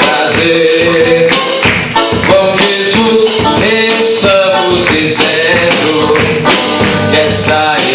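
Portuguese-language worship song with tambourine and other percussion keeping a steady beat.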